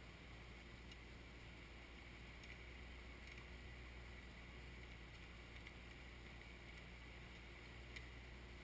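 Faint, steady low hum of a Kioti 3054 compact tractor's engine running some distance away while its backhoe works, with a few faint ticks.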